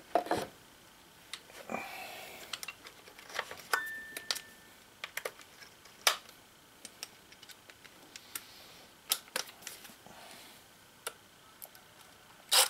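Scattered light clicks and knocks from handling a small finned DC converter and its wires against a wooden box, with a brief steady high tone about four seconds in and a louder pair of clicks near the end.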